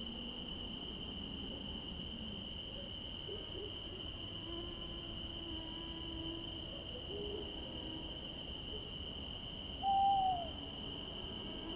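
Night forest ambience: a steady, high-pitched insect drone with low, gliding bird calls scattered through it, and one louder, short arched call about ten seconds in.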